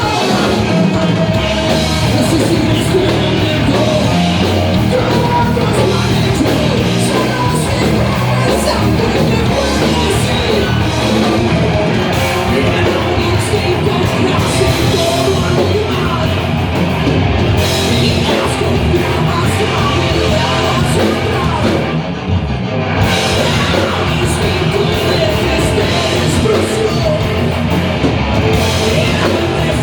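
Live rock band playing loud, heavy rock with singing. The music briefly drops out about 22 seconds in, then carries on.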